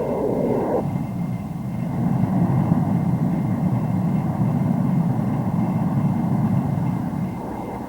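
Aircraft in flight: a steady rushing engine and air noise with most of its weight low down, a higher part dropping away under a second in.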